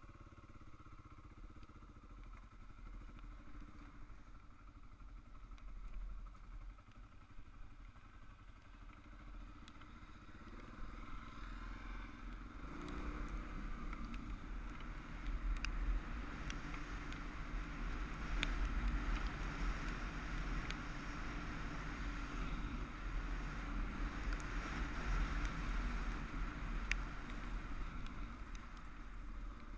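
Dual-sport motorcycle running on a dirt and gravel track, heard from on the bike; it gets louder as it speeds up about halfway through, with scattered sharp ticks over the engine sound.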